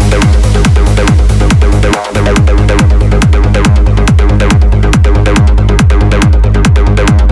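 Uplifting trance music with a steady four-on-the-floor kick drum under layered synths. The kick and bass drop out briefly about two seconds in.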